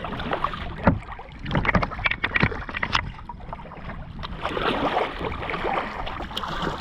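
Choppy water slapping and splashing against a kayak's hull as it moves across the pond: a run of sharp, irregular splashes in the first half, then a steadier wash of water.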